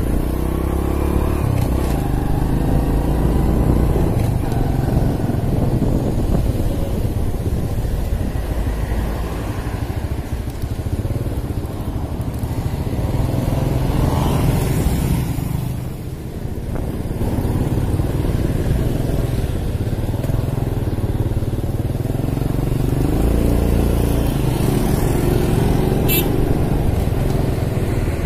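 Motorcycle engine running while riding, with wind rushing past the microphone. The engine note rises and falls with speed and drops briefly about halfway through.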